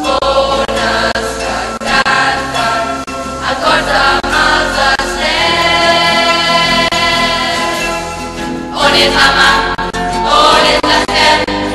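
A choir of voices singing a song together over musical accompaniment.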